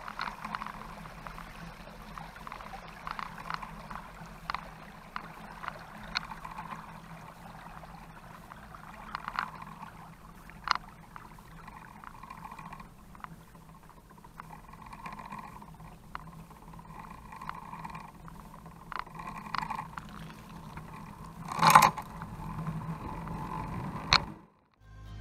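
Onboard ride noise of an ICE Adventure HD recumbent trike: tyres swishing through shallow floodwater on the road, then rolling on asphalt, with frequent small clicks and rattles from the trike and camera mount. A single loud knock comes a few seconds before the end.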